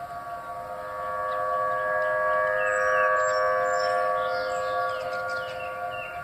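A steady, siren-like drone made of several held pitches at once, swelling louder in the middle and easing off toward the end, with short bird-like chirps over it.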